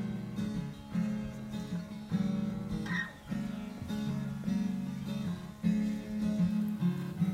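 Background music: acoustic guitar strumming and picking a steady tune.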